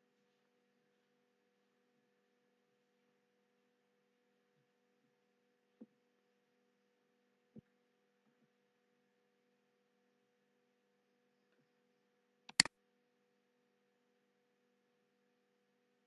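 Very quiet room tone with a faint steady hum, two soft clicks in the middle, then one sharp computer mouse click about twelve and a half seconds in.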